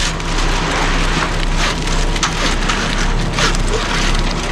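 Wet concrete sliding and scraping as it is poured from a ready-mix truck, a gritty, sloshing noise with repeated short scrapes, over the steady hum of the truck's diesel engine.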